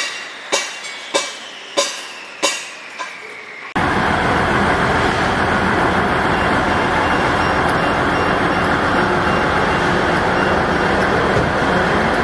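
A commuter train rolls in, its wheels knocking over rail joints about every 0.6 seconds. Then, about four seconds in, a loud steady drone sets in as the train stands at the platform.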